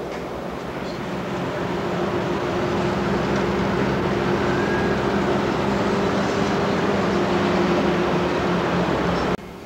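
Steady outdoor rush of wind and ocean surf, with a low steady hum underneath. It grows louder over the first couple of seconds and cuts off suddenly near the end.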